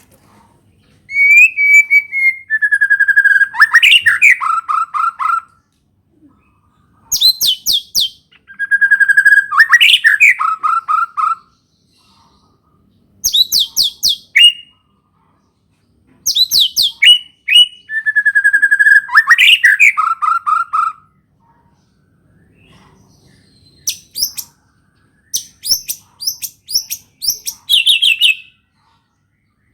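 White-rumped shama (murai batu) singing a song full of canary-learned phrases. Loud phrases come in bursts with short pauses. Several open with a clear whistle that slides down in pitch, then break into fast trills and rapid high chips, and the song ends on quick strings of very high notes.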